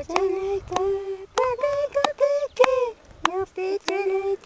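Women's voices singing a carnival song in high, held notes that step between a few pitches, the phrases breaking every second or so. Sharp taps keep time about every two-thirds of a second beneath the singing.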